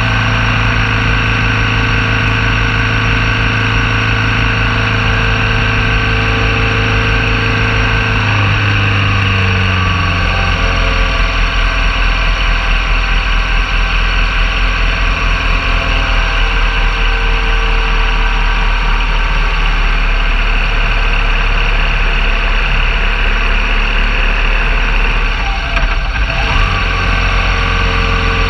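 BMW R1200 GS Adventure motorcycle's boxer-twin engine running steadily under way. Its pitch slides down about a third of the way through and dips briefly near the end.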